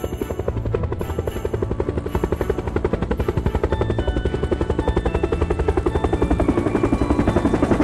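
Cartoon machine sound effect: a rapid, evenly pulsing mechanical whirring rattle over a low hum, growing slightly louder toward the end, with light music underneath.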